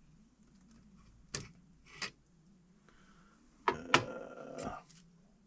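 Objects being handled on a work surface: two light clicks a second or two in, then a short clatter with two sharp knocks and some rustling about four seconds in.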